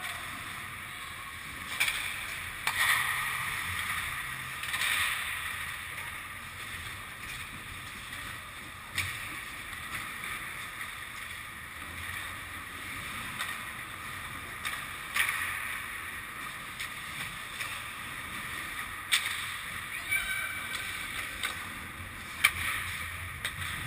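Ice hockey play heard across a rink: skate blades hissing and scraping on the ice, with sharp clacks of sticks and puck about half a dozen times, the loudest near the start and near the end.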